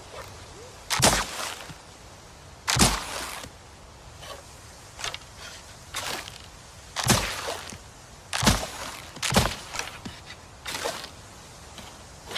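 Bow-and-arrow shot sound effect: a series of sharp snapping cracks, about five loud ones and a few softer ones, spaced irregularly a second or two apart.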